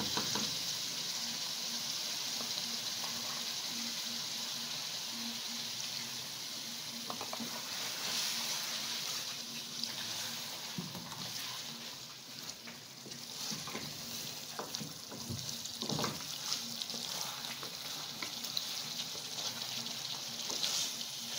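Chicken in a thick white masala gravy sizzling steadily in a kadhai at its final stage of cooking, with a wooden spatula and ladle stirring and scraping against the pan now and then.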